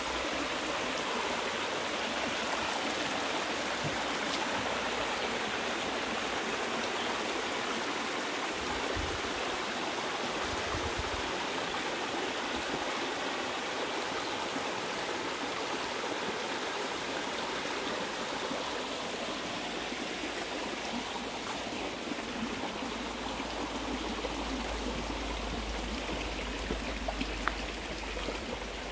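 Steady rush of water from a cascading mountain stream: an even, unbroken hiss that eases slightly in the last several seconds.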